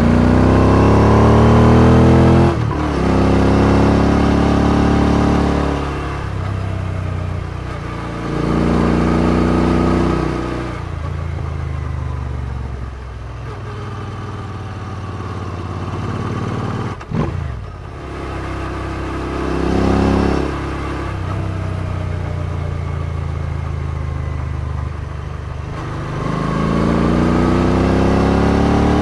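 Royal Enfield Interceptor 650 parallel-twin engine on aftermarket exhausts, heard from the rider's seat while riding. It accelerates out of bends, its pitch climbing and breaking off at gear changes, and settles to a lower steady note when the throttle is rolled off between bursts.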